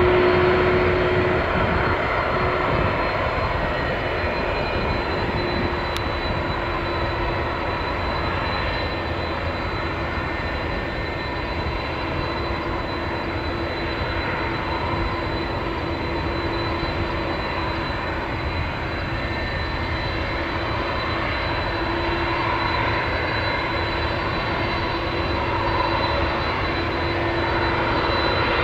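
Boeing 767-300's jet engines running at taxi power: a steady rumble with a constant hum and a thin high whine.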